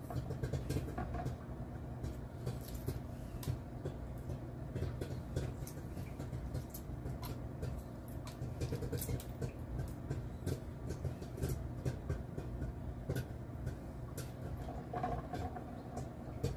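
Popcorn popping: scattered sharp pops, a few a second, over a steady low hum, mixed with the light crackle of hard-boiled eggshells being peeled by hand.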